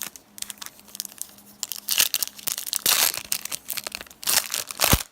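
A Topps Platinum trading-card pack wrapper being torn open and crinkled by hand, in repeated crackly bursts that are loudest about two, three and five seconds in.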